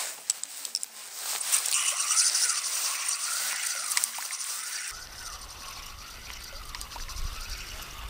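Water splashing and trickling as a small hooked fish thrashes at the surface near a float, with a faint whine that rises and falls a little over once a second.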